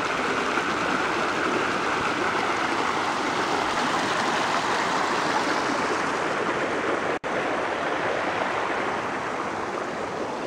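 Water rushing steadily over rocks where a small stream spills into a flooded taro patch, with a brief dropout in the sound about seven seconds in.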